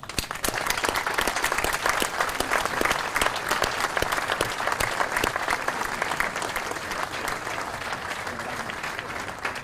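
Audience applauding: dense clapping from many hands that starts all at once and slowly thins out toward the end.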